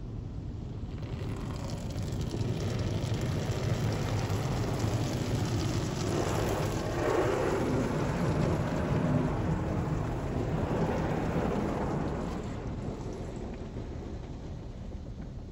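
Ryko SoftGloss MAXX 3 touch-free car wash spraying the car with coloured foam, heard from inside the cabin. It is a rain-like rush of liquid drumming on the roof and glass that builds up, is loudest midway, and dies away near the end.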